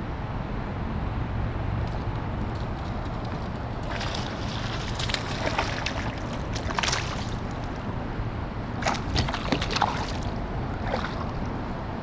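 A hooked bass splashing at the water's surface beside a kayak as it is reeled in and landed, in two spells of sharp splashes, about four seconds in and again near nine seconds, over a steady low rumble.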